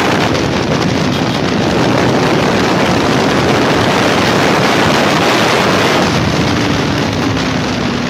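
Heavy wind noise buffeting the microphone of a Honda CBR250R at road speed, covering the motorcycle's engine. A faint steady engine tone comes through near the end.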